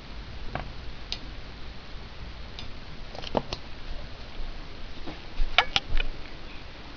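Scattered light clicks and taps over a steady hiss, with the sharpest few in a quick cluster about five and a half seconds in.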